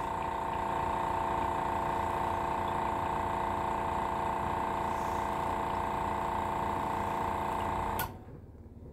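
Airbrush being back-flushed: the nozzle is blocked with a rag while the trigger is held, forcing air back up through the cleaning fluid in the paint cup in a steady buzzing hiss. It cuts off suddenly about eight seconds in.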